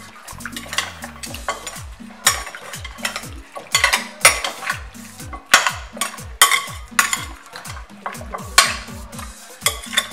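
A metal spoon stirring and turning chunks of seasoned raw goat meat in a glass bowl, with irregular clinks and scrapes of the spoon against the glass, a few a second.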